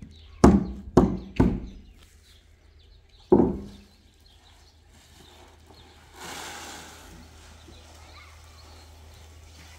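Three heavy thuds about half a second apart, then a fourth a couple of seconds later, each dying away quickly, over a low steady hum. A short hiss of noise follows about six seconds in.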